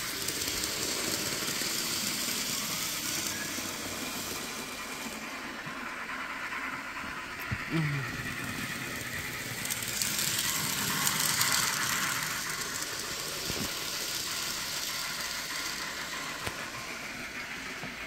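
Model Pennsylvania Railroad F-unit diesel train running along the layout track: a steady rattle and hum of its wheels and motor on the rails.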